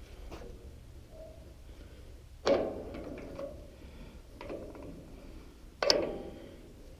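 Two sharp metal clanks, about three and a half seconds apart, each ringing briefly, with a few lighter clicks between them, as a screw clamp is set and tightened to press a steel bushing tight.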